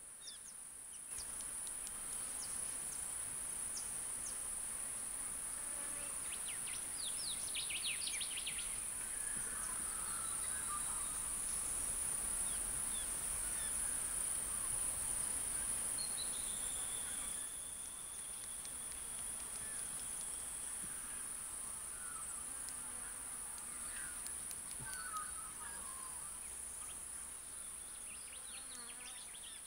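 Insects droning steadily at a high pitch, with a few short bird chirps now and then.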